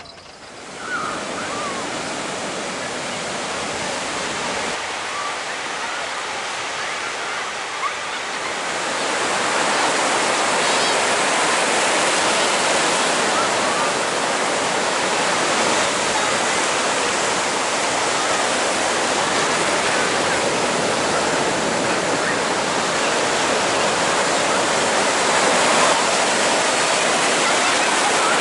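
Surf breaking on the beach: a steady rush of waves, louder from about nine seconds in, with faint voices in the background.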